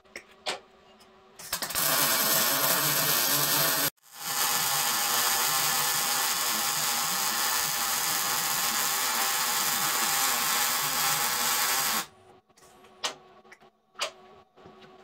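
Wire-feed welder arc running on steel: a steady hiss in two runs, a short one of about two seconds, then a brief break and a longer run of about eight seconds. Light clicks come before and after.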